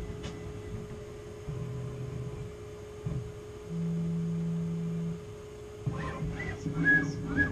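Tormach 440 CNC mill's axis stepper motors whining in short moves at differing steady pitches during an automatic probing cycle, over a constant electrical hum. The longest and loudest move runs from about four to five seconds in, and a quicker run of short moves comes near the end.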